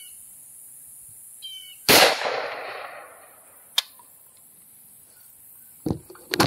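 A single rifle shot from an AR-15, a sharp crack whose report dies away over about a second. A sharp click follows a couple of seconds later, and a few lighter knocks near the end.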